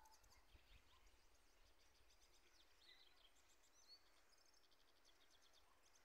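Faint chorus of small birds chirping and trilling, many quick high calls overlapping throughout, with a rising whistled note a little before the four-second mark.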